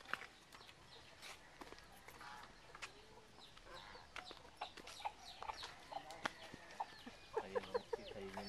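Backyard chickens clucking, with many short high chirping calls throughout and a quick run of lower clucks about seven and a half seconds in.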